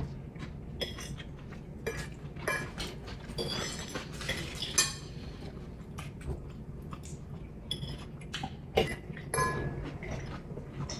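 Metal forks clinking and scraping on ceramic plates while eating, in scattered light taps, with a few sharper clinks about five and nine seconds in.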